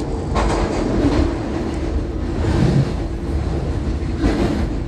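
SEPTA Adtranz M4 rapid-transit train running on elevated track, heard from inside the car: a steady low rumble of wheels and running gear, with louder rail clatters about half a second in and again near the end.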